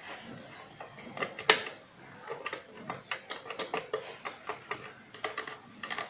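Push-button speed switches on a Moulinex blender clicking as they are pressed over and over, with one sharp click about a second and a half in, then a run of lighter clicks. No motor sound follows: the blender is dead and will not start, after a short circuit from bad wiring.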